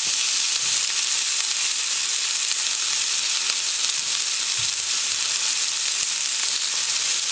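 A 200-gram beef burger patty sizzling steadily in a hot grill pan, a constant dense hiss with faint small crackles.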